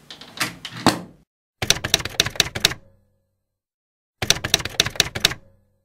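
Typewriter keys clacking in two quick runs of keystrokes, each about a second and a half long, with dead silence between them. A few sharp knocks come in the first second.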